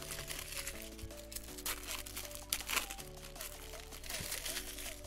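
Crinkling and rustling of a foil trading-card pack and the cards inside being handled, over background music of held chords.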